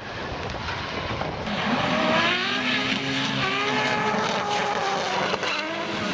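Drift car's engine revving hard, its pitch swinging up and down as the car slides past, with tyre noise under it. The engine comes in about a second and a half in and drops in pitch near the end.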